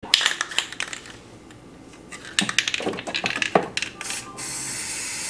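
Metallic clicks and clinks, then from about four seconds in a steady hiss of an aerosol spray-paint can spraying.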